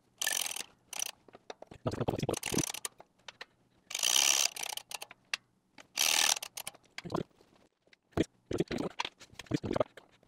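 Steel parts of a universal joint (bearing cups, yoke and sockets) being handled and set in a hydraulic shop press to press new U-joint cups into a driveshaft yoke: a string of short, irregular metallic clinks, clunks and rattles.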